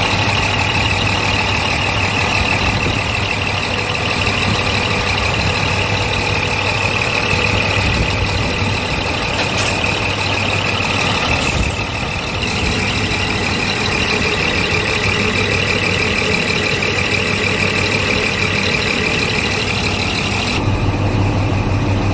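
Scania P380 Euro 5 diesel engine idling steadily, a deep low hum with a high, fast ticking over it. Near the end the ticking drops away and the engine sounds duller.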